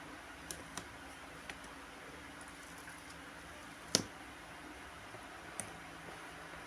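A few light clicks and one sharper click about four seconds in, over a steady low hiss.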